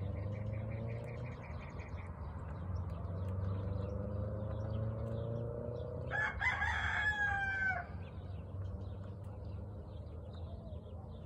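A rooster crows once, a single call of about a second and a half, about six seconds in.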